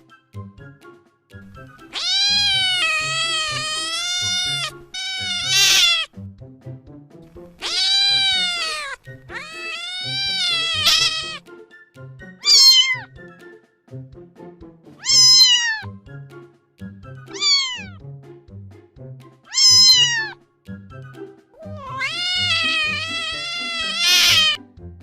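A domestic cat meowing repeatedly, about nine meows: several long, drawn-out ones with a wavering, arching pitch, and shorter ones between. Quieter background music with a steady low beat runs underneath.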